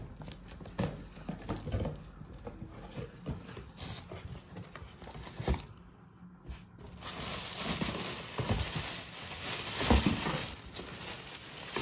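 Cardboard box being opened, with scattered taps and knocks. From about seven seconds in, plastic wrapping rustles and crinkles as the mixer grinder's parts are lifted out.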